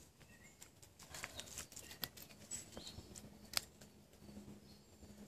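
Faint scattered clicks and small rustles of gloved hands and scissors working to free a bird's stuck legs, the loudest click about three and a half seconds in.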